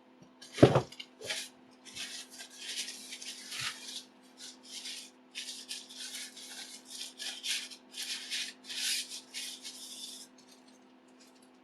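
Packaging being handled and unwrapped: a sharp knock under a second in, then irregular rustling and rubbing of wrapping as the multi-effects pedal is pulled free, stopping near the end. A faint steady hum runs underneath.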